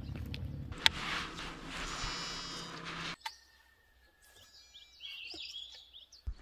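Outdoor lakeside ambience: a steady rushing noise with one sharp click about a second in. It cuts to a quieter stretch about three seconds in, where small birds chirp near the end.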